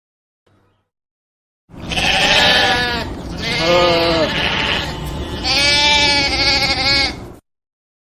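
Sheep bleating three times in a row, each a long quavering call, the first coming after a short silence.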